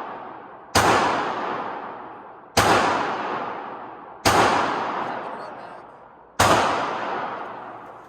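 Four slow, deliberate shots from an Auto-Ordnance 1911 pistol in .45 ACP, about one every two seconds, each with a long echoing tail.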